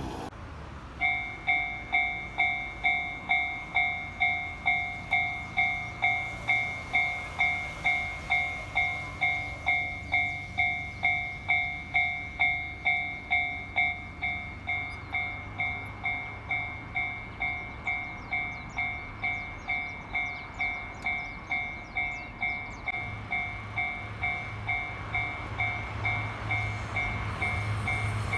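Japanese railway level-crossing warning bell starting about a second in and ringing steadily, an electronic kan-kan at a little under two strikes a second. Near the end the low rumble of an approaching train rises beneath it.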